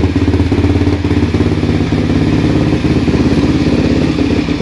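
Suzuki QuadSport LT-Z400 ATV's single-cylinder four-stroke engine idling steadily, with an even, fast beat of firing pulses.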